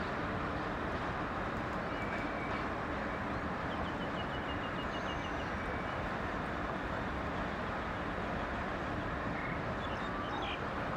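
Steady rumble of a passenger train at a station platform, with a short run of high chirps about four seconds in.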